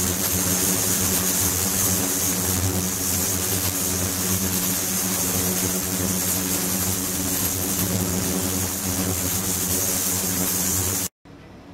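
Water pouring in a steady stream into a glass jar and splashing into a stainless steel sink, over a steady mechanical hum with several low tones. The sound cuts off abruptly about eleven seconds in.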